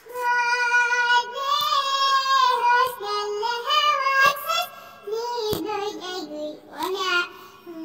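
A child singing alone, unaccompanied, in a high voice: long held notes that slide and wobble in pitch, in phrases with short breaks. A few sharp clicks fall between the phrases.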